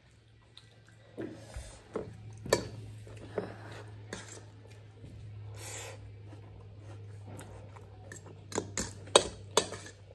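Metal fork clinking and scraping against a stainless-steel bowl of noodles, with a slurp of noodles about halfway through. Several sharp clinks come close together near the end.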